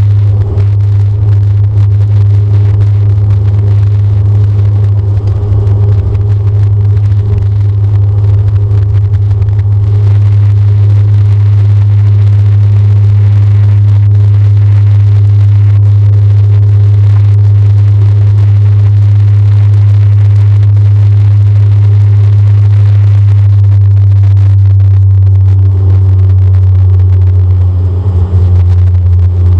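Cabin sound beside the engine of a DHC-8 Q400 turboprop at takeoff power: a loud, steady propeller drone with a deep hum. Rough rumbling from the runway in the first few seconds gives way to a smooth drone in the climb, and the tone shifts slightly near the end.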